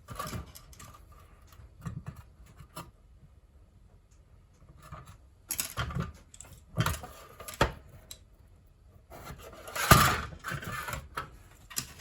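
Scattered small clicks, taps and rustles from handling wires, a cable connector and soldering tools on a workbench, with quiet gaps and a louder knock about ten seconds in.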